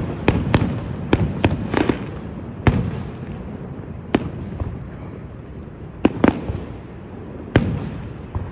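Fireworks going off: a quick run of sharp bangs in the first two seconds, then single bangs every second or two, over a steady low rumble.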